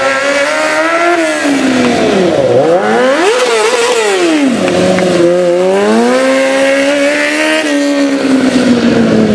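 Sport motorcycle engine revving under a stunt rider, its pitch climbing and falling again and again. It drops low about two seconds in and again near the middle before climbing back up.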